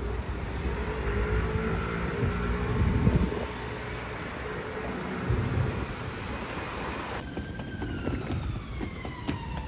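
City street traffic noise with a steady low rumble. After a sudden change about seven seconds in, a siren wails, its pitch falling slowly.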